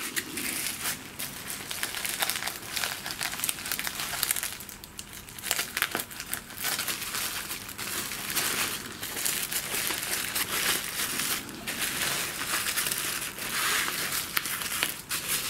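Bubble wrap and packing tape crinkling and crackling in irregular bursts as a wrapped package is handled and cut open with scissors.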